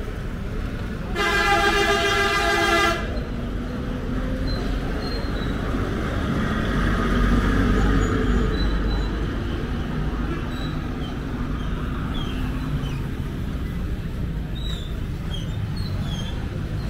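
Street traffic with a vehicle horn sounding once about a second in, held for nearly two seconds. Then a bus drives past, its engine rumble loudest around the middle.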